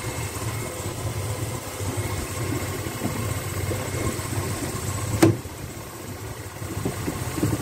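Small motorboat's engine running steadily with a low hum, heard from inside the boat's cabin. About five seconds in there is a single sharp knock, and the engine sound eases for a couple of seconds after it.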